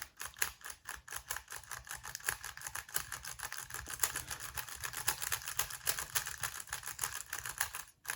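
GAN 356 XS magnetic 3x3 speedcube being turned quickly by hand, its layers clicking sharply several times a second as the same two-move sequence is repeated over and over; the clicking breaks off briefly near the end.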